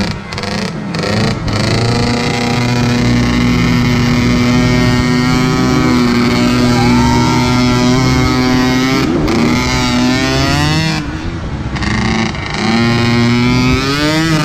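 Small ATV engine running close at a steady pitch, revving up with a rising whine about a second in and again near the end, with a brief drop in level in between.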